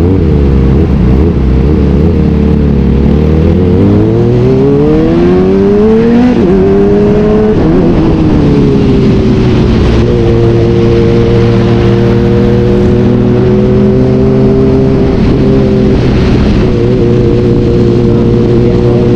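Motorcycle engine under acceleration: the pitch climbs for a couple of seconds, drops twice as it shifts up, then holds a steady pitch at cruising revs.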